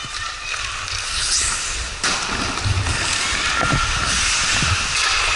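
Ice hockey skate blades scraping and hissing on the ice, with scattered dull thuds. The noise jumps louder about two seconds in.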